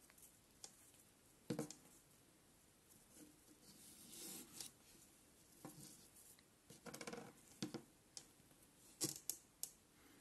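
Faint handling of a wooden rope puzzle: paracord sliding and rustling, with a few light clicks and knocks as the wooden balls and ring touch each other and the cutting mat. A quick cluster of clicks near the end comes as the pieces are laid down on the mat.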